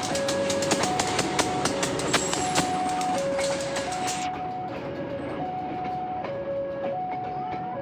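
A CC 201 diesel-electric locomotive and its passenger coaches pass close by, the wheels clacking sharply over rail joints for the first four seconds over a steady rumble. A level crossing alarm sounds throughout as an even, alternating two-tone chime.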